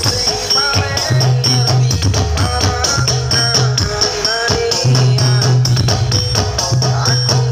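Loud music played over a huge parade sound system ('sound horeg'). It has heavy bass notes held for about a second each, a bending melodic lead line and a steady percussion rhythm.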